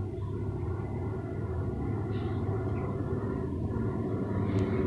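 Industrial sewing machine motor humming steadily, getting slightly louder toward the end, with a light click near the end.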